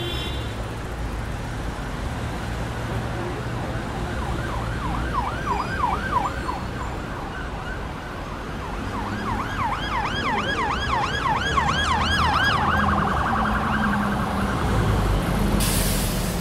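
City traffic rumble with an emergency vehicle's siren yelping in fast rising-and-falling wails, about four a second. The wails come twice, the second run louder, then give way to a briefly held tone. A short hiss comes near the end.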